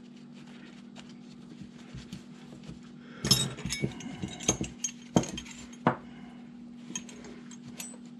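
Small metal hand tools clinking and clattering as they are picked up and handled, a cluster of sharp clinks starting about three seconds in, over a steady low hum.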